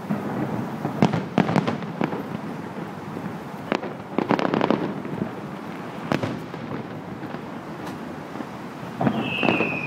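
Fireworks display: aerial shells bursting in a series of sharp reports, with a cluster about a second in and a longer crackling run around four to five seconds, then more single bursts. A high whistle, falling slowly in pitch, sets in near the end.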